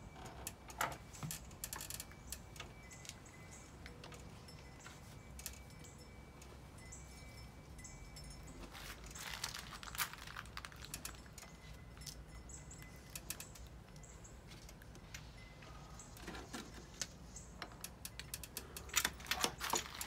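Faint, scattered clicks and rattles of a power wheelchair's seatbelt buckle and strap being handled, with busier clusters about halfway through and again near the end.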